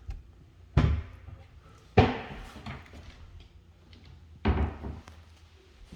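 Three thuds of doors being shut: one about a second in, a louder one about two seconds in that rings on briefly, and a third near the end.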